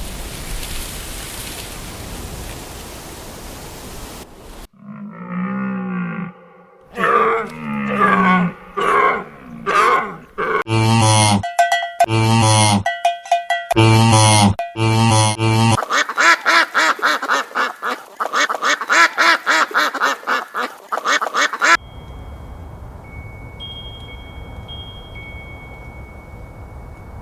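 A series of farm-animal calls spliced one after another with abrupt cuts: a few drawn-out calls, then about five short strong calls in a row, then a rapid dense chatter. Stretches of steady outdoor background noise lie on either side of the calls.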